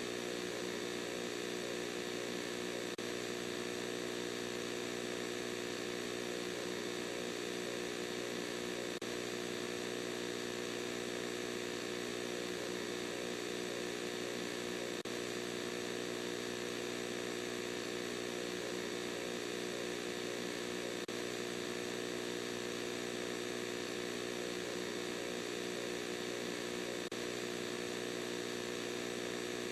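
Steady electronic drone: a buzzing hum of several held low tones, unchanging throughout, with a faint tick about every six seconds.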